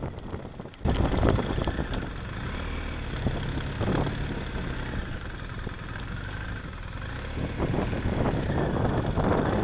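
BMW GS adventure motorcycle engine running steadily at low speed, with tyre and road noise from a gravel track. The sound jumps louder and fuller about a second in.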